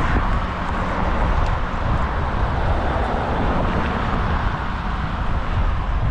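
Steady wind buffeting the microphone and road noise of a road bike riding at speed.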